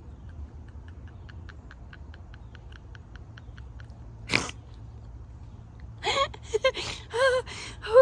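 A woman laughing: a single sharp burst of breathy laughter about four seconds in, then bouts of giggling with rising and falling pitch near the end. Before the laughter, faint quick ticking repeats about five times a second.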